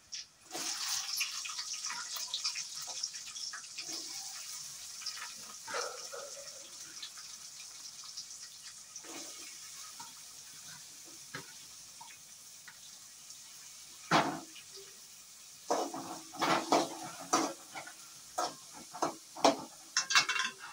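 Chopped onions sizzling as they hit hot oil in an aluminium kadai, a steady hiss that slowly fades. Near the end a metal spoon clatters and scrapes against the pan as it is stirred.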